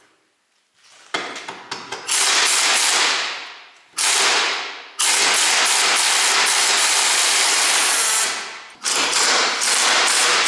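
Compressed air hissing loudly in long blasts, starting with a few quick sputters about a second in and pausing briefly twice.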